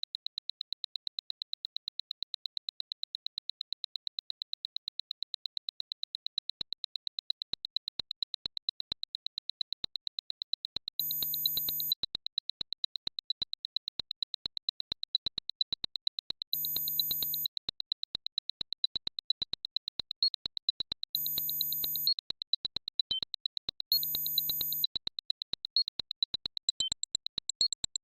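Synthesized electronic tones: a rapid, even train of short high-pitched beeps, joined four times by a steady low tone lasting about a second.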